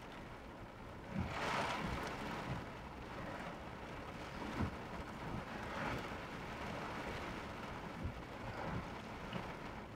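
Heavy rain and wind on a car in a flash-flood downpour, heard from inside through the dashcam, with tyre and road noise in a steady rush. The rain surges louder about a second in, and a few short thumps sound later.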